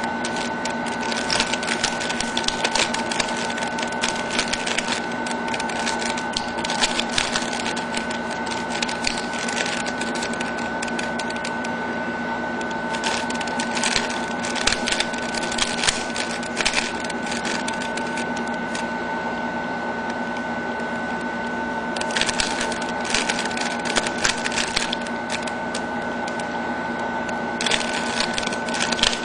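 A plastic mirror (bump) cube being turned fast by hand, its layers clattering in rapid clicks in runs with a couple of short pauses. A steady whine sits underneath throughout.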